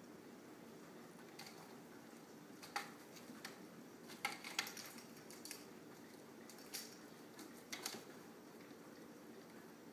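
Kitten's claws scratching and tapping on a cat tree: a scattering of short, light scrapes and clicks, thickest between about three and five seconds in, over a faint steady hiss.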